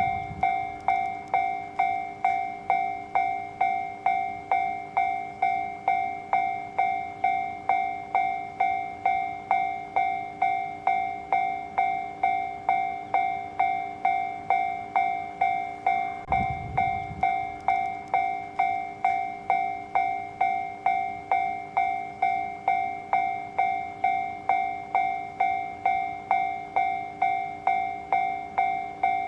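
Japanese railway level crossing warning bell ringing its steady repeating clang, somewhat under two strikes a second, each strike fading before the next: the signal that a train is approaching and the crossing is closing. A brief low rumble rises under it about halfway through.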